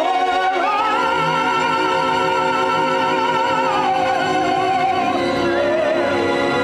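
Opera singing with orchestra: a voice with strong vibrato rises to a long high note about half a second in and comes back down near the end, over steady orchestral chords.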